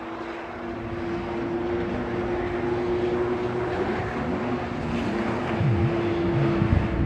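Motor engines running out of sight, one holding a steady note while others rev up and down, growing louder toward the end.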